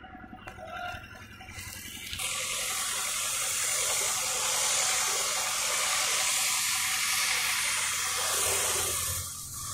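A steady, loud hiss that starts abruptly about two seconds in and drops away shortly before the end.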